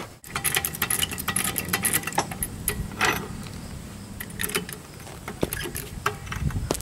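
Metal clicking and rattling as a hydraulic floor jack is handled and set under the car's side. The jangling is dense for the first three seconds, then thins to scattered clicks.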